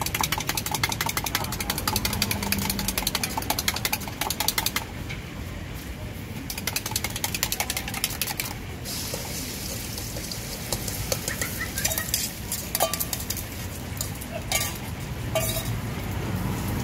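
Eggs being beaten in a small steel cup: rapid, even clicks of the utensil against the metal, pausing briefly about five seconds in and then resuming. About nine seconds in, the beaten egg is poured into a wok of smoking-hot oil and sizzles, with scattered small clicks.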